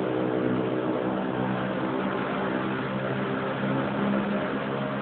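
A machine running steadily: a constant low-pitched hum under a rushing noise, with no change in pitch or level.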